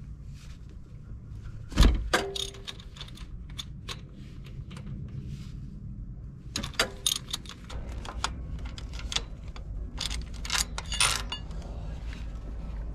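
Ratchet wrench and socket clicking and clinking against metal while bolts are worked loose at the front of an LS V8 engine, with one louder knock about two seconds in.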